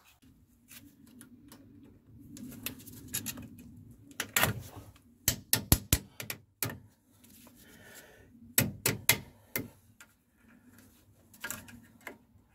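Sharp metallic clicks and taps of a new spring clip being handled and fitted onto a Rover 75 front brake caliper, coming in several quick clusters over a faint low hum.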